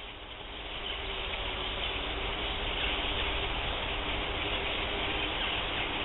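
A large flock of small birds calling all at once, a dense continuous chatter that swells over the first second and then holds steady.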